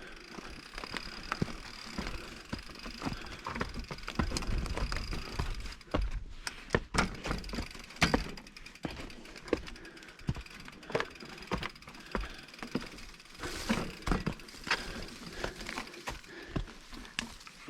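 Mountain bike rolling over a rough, rocky trail: irregular knocks and rattles from the bike over a low rumble, with a faint steady high tone through the first half.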